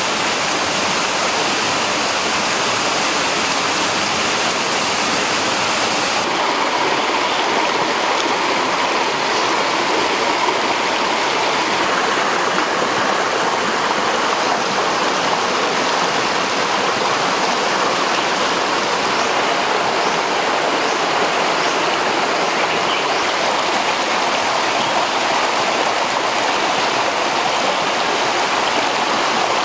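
Shallow rocky stream running over stones and small cascades: a steady rush of water, a little duller in its highest tones from about six seconds in.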